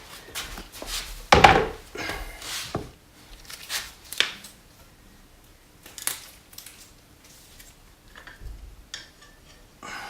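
Irregular knocks, clinks and scrapes of metal motorcycle fork parts being handled as the fork tube is worked out of its housing. The loudest knock comes about one and a half seconds in.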